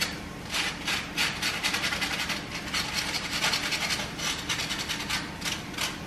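Burnt toast being scraped to take off the charred surface: rapid, rasping scraping strokes, several a second, with a short lull at the start.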